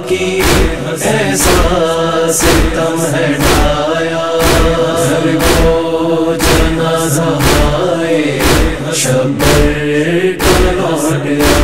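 Noha chorus chanting a lament in long held notes over a steady percussive beat of about two strikes a second.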